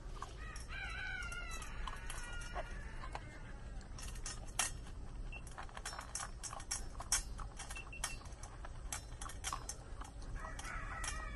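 A young Kumano-ji dog eating readily from a stainless steel bowl: a steady run of small crunches, clicks and clinks of kibble and metal. Another animal gives a drawn-out falling call about a second in and calls again near the end.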